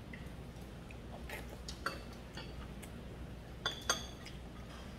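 Chopsticks and spoons clinking and tapping against bowls and the pan while eating: scattered light taps, then two sharper ringing clinks in quick succession near the end, over a low steady hum.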